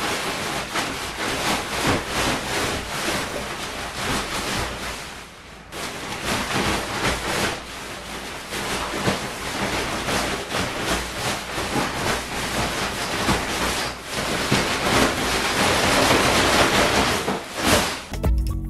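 Inflatable dinosaur costume rustling and swishing as the wearer dances and shadow-boxes, over a steady rushing noise. The noise dips briefly about five seconds in and grows louder near the end.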